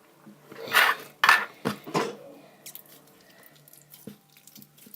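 Clear slime being squished and stretched by hand, tearing as it goes: a few wet, crackly squelches in the first two seconds, then faint small clicks and pops.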